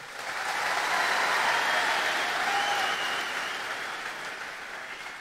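A large crowd applauding. The clapping swells within the first second and then slowly dies away.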